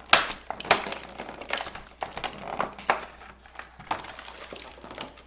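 Plastic toy packaging crinkling and crackling as small parts are pulled and pried out of it by hand, with irregular sharp snaps, the loudest just after the start.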